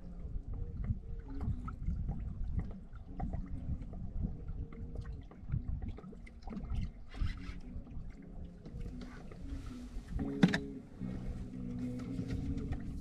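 Low rumble of wind and water around a drifting fishing boat, with scattered small clicks and knocks and one sharp knock about ten and a half seconds in. Music comes in near the end.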